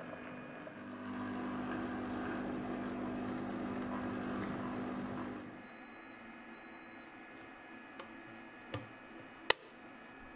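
Chefbot Compact kitchen robot running its jam-and-compote program with a steady low motor hum, then two short high beeps, the machine's signal that the program has ended. A few clicks follow, one sharp, as the plastic measuring cap in its lid is handled.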